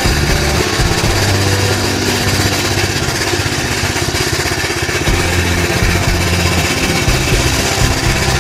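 Wheel Horse garden tractor's engine running steadily and loudly while the tractor drives along.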